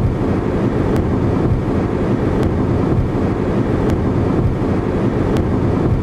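Car driving at highway speed, heard from inside the cabin: steady road and engine noise, with a faint tick about every second and a half.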